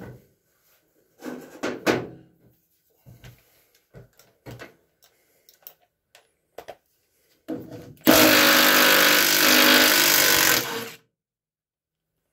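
Milwaukee M12 cordless stubby impact wrench running for about three seconds, about eight seconds in, undoing a 9/16 bolt that holds a mower-deck spindle hub. Before it come a few light clinks and knocks of tool handling on the steel deck.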